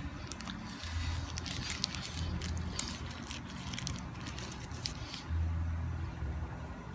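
Crunchy snack chips bitten and chewed close to the microphone: a run of sharp crackling crunches over the first few seconds, then quieter chewing. A low hum swells and fades several times underneath.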